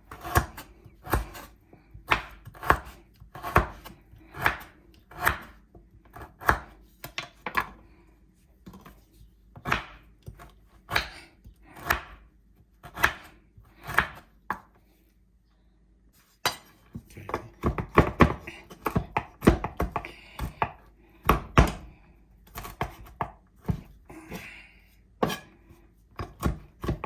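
Knife chopping galangal root into small pieces: a run of sharp knocks, about one or two a second at first, a short pause about fifteen seconds in, then quicker chopping.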